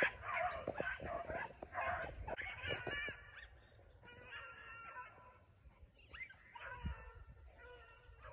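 A pack of beagles baying on rabbit tracks, several voices overlapping in drawn-out bawls and shorter chops. The pack is split and running two separate rabbit tracks at once.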